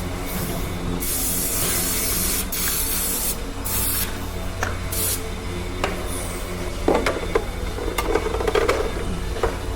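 Several hissing spray bursts in the first five seconds, the longest about a second and a half, over a steady low hum. A few short knocks and clatters follow in the second half.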